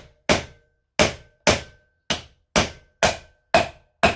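A hammer strikes a steel driver tool about twice a second, eight sharp metallic blows with a brief ring, driving a new wheel bearing race down into a Land Rover Defender hub until it seats.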